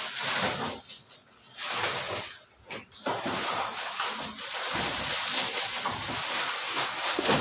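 Plastic packaging rustling and crinkling in uneven stretches as lighting stands are unpacked from their wrapping.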